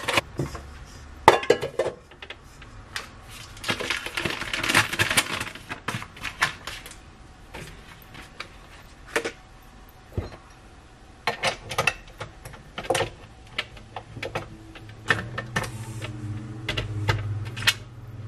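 Kitchen handling sounds: scattered clicks and knocks of utensils and a tilt-head stand mixer against a stainless steel bowl, with a stretch of rustling from a bag about four seconds in.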